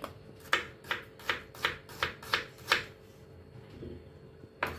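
Kitchen knife chopping onion on a wooden chopping board: a run of about seven sharp knocks, roughly three a second, then a pause and one more knock near the end.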